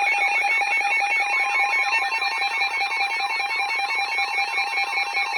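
Electronic emergency alert tones layered over one another: several steady alarm tones with a fast pulsing beat and warbling, siren-like sweeps.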